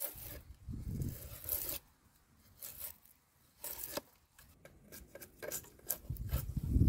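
A blade shaving and tearing bark off a wooden acacia branch, in irregular scraping strokes about a second apart, louder and heavier near the end.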